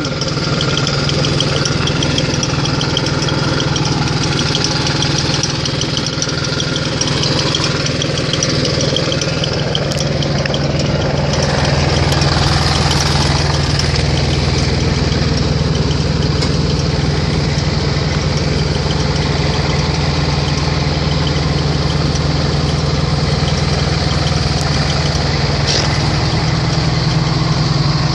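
Farm machinery diesel engine running steadily, getting slightly louder about twelve seconds in.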